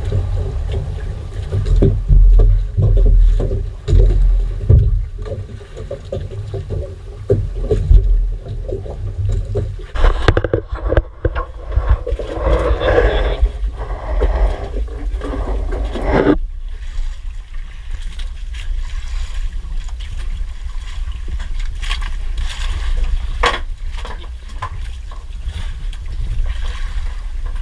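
Low rumble of wind and water around a small outrigger fishing boat at sea, swelling and fading in the first half. In the second half there are handling scrapes and a couple of sharp knocks.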